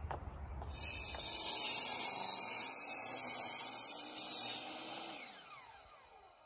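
Hitachi miter saw switched on about a second in and cutting through a wooden board, then the blade winding down with a falling whine near the end.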